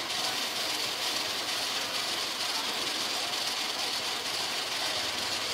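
Steady street-stall background noise: an even hiss with a faint machine-like running sound and no distinct events.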